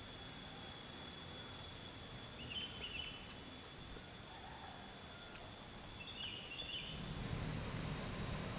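Insects trilling steadily in high, even tones, with short bird chirps about two and a half seconds in and again about six seconds in. A low rumble builds over the last second and a half.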